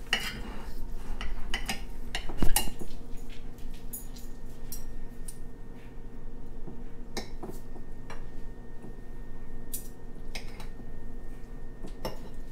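Fork and knife clinking and scraping on a plate while cutting and eating food, in scattered short strokes, the loudest clink about two and a half seconds in. A steady low hum runs underneath.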